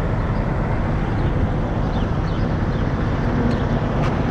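Steady low rumble of wind buffeting the microphone, with road traffic noise underneath.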